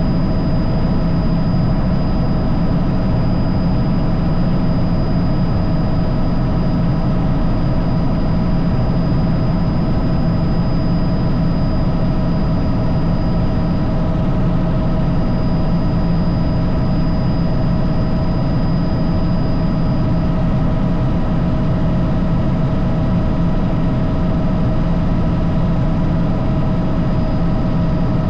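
Helicopter running steadily: a constant low drone with several steady whining tones on top.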